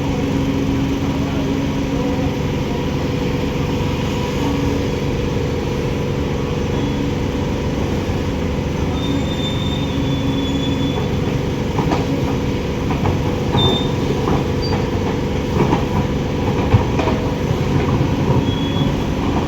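Heavy construction machinery running steadily with a low engine rumble, with short high metallic squeals and scattered knocks in the second half.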